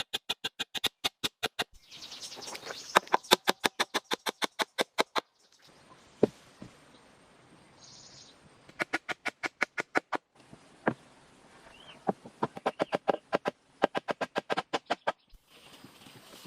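Rapid runs of sharp knocks, about eight a second, coming in several bursts with abrupt breaks between them.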